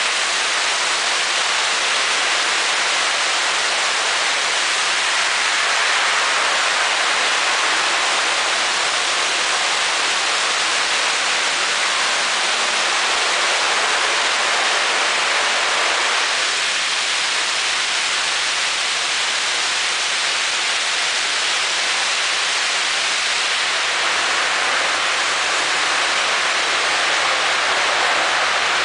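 High-pressure water jets of an automatic tunnel car wash spraying a pickup truck, giving a steady, loud hiss of spray.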